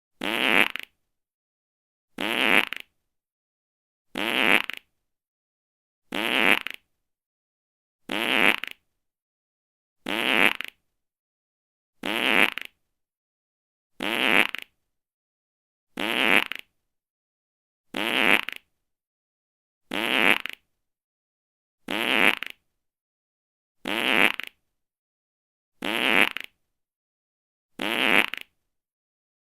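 A short fart, about half a second long, repeated every two seconds with silence between, about fifteen times in a row.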